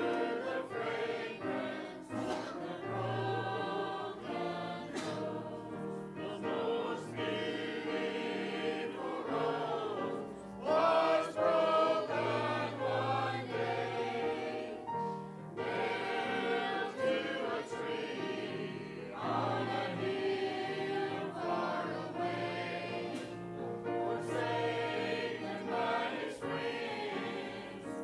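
Mixed church choir of men and women singing a hymn from hymnals, phrase after phrase with held notes.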